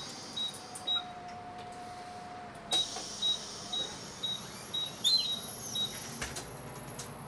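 Short high electronic beeps repeating about twice a second from the bus's dashboard, over the hum and rumble of the city bus cabin. A few sharp clicks sound, and the rumble grows louder about four seconds in.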